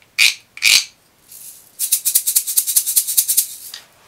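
Wooden tube shaker being shaken: two single sharp shakes, then after a short pause a quick, even run of about ten shakes a second lasting well under two seconds.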